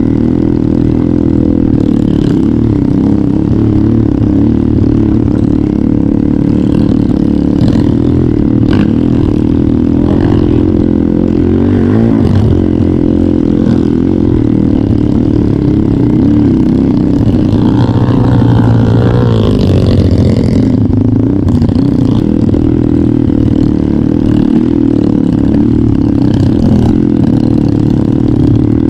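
Trail motorcycle engine running steadily under way, with a brief wavering higher note about two-thirds of the way through.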